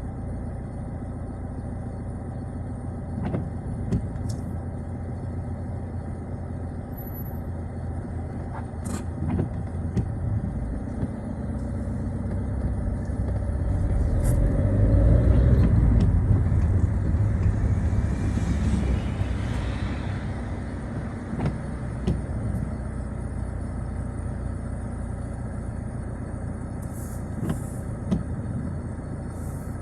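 Citroën Xsara driving, a steady low rumble of engine and road that swells to its loudest about halfway through and then eases off again. A few sharp clicks are scattered through it.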